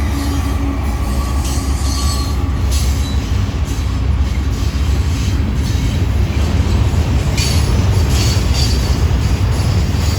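Freight train rolling past: a steady low rumble of the cars on the rails that grows slowly louder, with short high-pitched wheel squeals scattered through it.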